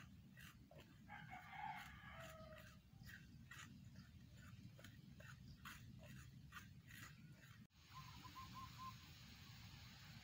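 A stick stirring roasting rice in a metal wok, scraping the pan about twice a second. A rooster crows about a second in. After a sudden break near the end, only a steady hiss with a few faint bird chirps remains.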